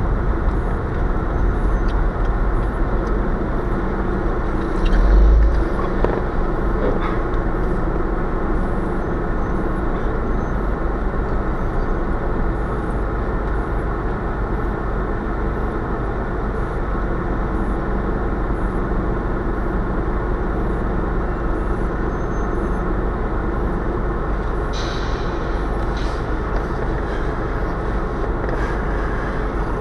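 Steady drone of a car's engine and road noise heard inside the cabin by a dashcam, with a low bump about five seconds in and a short hiss near the end.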